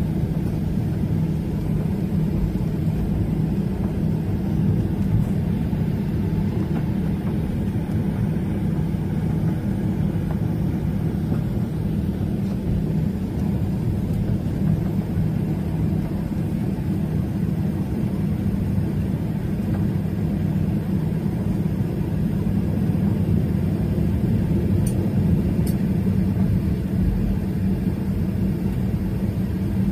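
Steady low cabin rumble inside a Boeing 737-800, its engines and air system running with a constant hum. A couple of faint clicks sound near the end.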